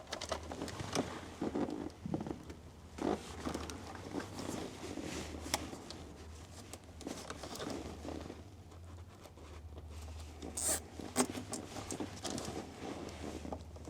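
Dashcam power cable being fastened to the car's wiring harness so it won't rattle while driving: irregular rustling and scraping of cable and plastic, with a few sharp clicks about ten seconds in.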